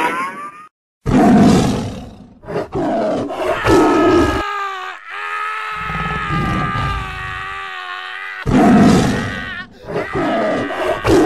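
Dinosaur roar sound effects: a series of long, loud roars, with one drawn-out roar in the middle held at a steady pitch.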